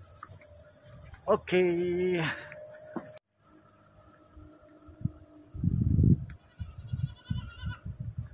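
Loud, high-pitched chorus of insects, a fast pulsing buzz that holds steady apart from a brief dropout about three seconds in.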